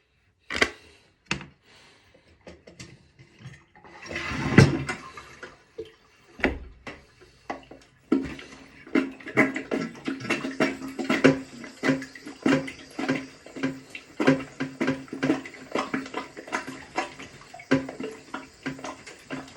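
Clogged toilet being flushed: a few clicks, then a rush of water about four seconds in. From about eight seconds the water runs on with a steady low hum, under many quick, irregular clicks and knocks.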